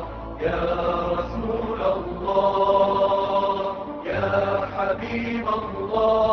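Vocal nasheed chanted in long, held notes over a low drone, the phrases pausing briefly every couple of seconds.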